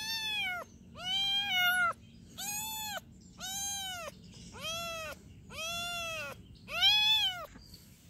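A kitten meowing over and over: about seven short meows roughly a second apart, each rising and then falling in pitch, the loudest one near the end.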